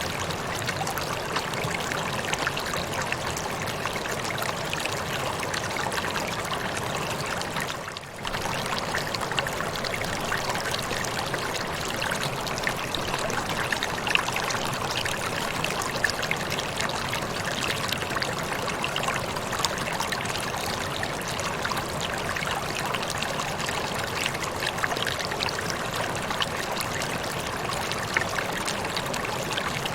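Waterfall: a steady rush of falling and splashing water, with a brief dip in level about eight seconds in.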